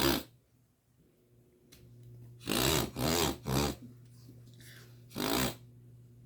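A woman sneezing in a fit brought on by allergic rhinitis: three quick sneezes in a row a little over two seconds in, then one more about five seconds in.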